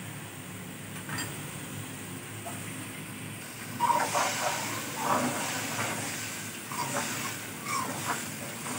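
A steady hiss, then from about three and a half seconds in, thick curry masala sizzling and bubbling in a steel pan as a spoon stirs and scrapes through it.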